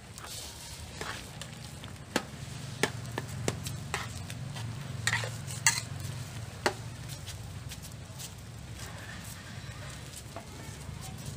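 A metal spatula stirring luffa and pork in a wok of simmering broth, clinking and scraping against the pan several times in the first seven seconds, over a soft bubbling sizzle and a low steady hum.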